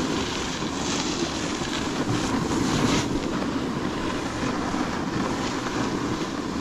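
Steady rushing noise of wind on the microphone, mixed with the scrape of a snowboard sliding over snow, a little stronger about one to three seconds in.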